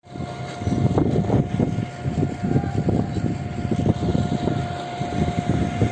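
Concrete pump running: a low mechanical rumble with dense, uneven knocking and a steady whine that cuts off near the end.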